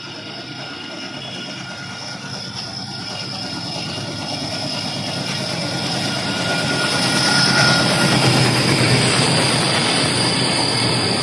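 WDM-3A diesel locomotive with its ALCo V16 engine approaching and running through at speed, growing steadily louder to a peak about eight seconds in. The rumble of the coaches' wheels on the rails follows as the train rolls past.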